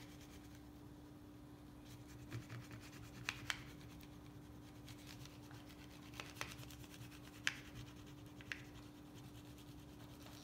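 Purple wax crayon being scribbled back and forth over a paper plate: a faint, steady scratching, with a few small ticks as the crayon strikes the plate.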